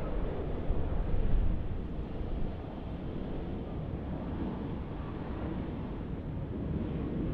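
Boeing 787-8 Dreamliner on landing approach: a steady rush of jet engine noise at approach power, with wind gusts buffeting the microphone.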